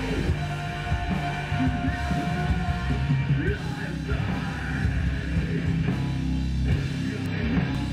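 Rock music with heavy guitars and a steady beat, with some singing or shouted vocals.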